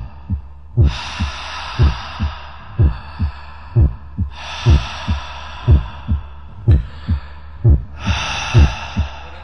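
Heartbeat sound effect: a double low thump, lub-dub, about once a second, at a slow resting pace. Long hissing breaths swell in and fade three times over it.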